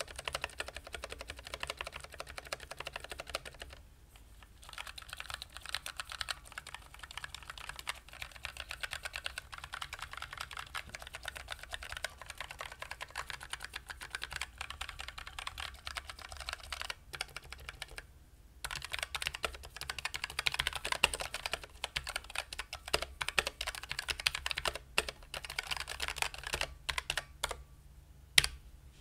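Typing on a Redragon Anubis low-profile mechanical keyboard with lubed Outemu Brown low-profile tactile switches: fast runs of key clacks broken by brief pauses. Near the end the presses come more sparsely, with one sharper keystroke just before the end.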